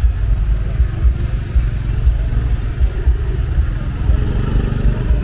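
Street traffic ambience: a heavy, uneven low rumble of vehicle engines, motorbikes among them, with faint voices underneath.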